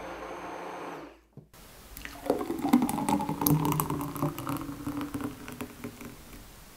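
A blender running steadily for about the first second, then cut off. From about two seconds in, a thick milkshake is poured in a stream from the blender jar into a glass, gurgling and splashing as the glass fills, fading out near the end.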